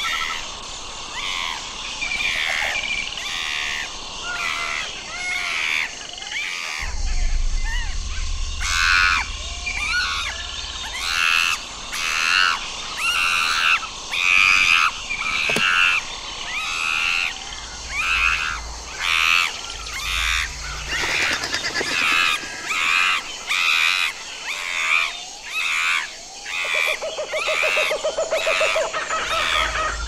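Chimpanzees calling in a long rhythmic series, a little more than one call a second, growing louder about ten seconds in.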